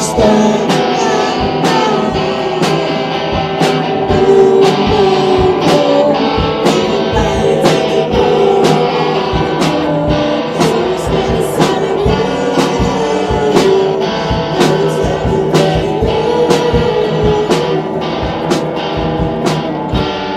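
Pop song playing with a steady beat and a singing voice.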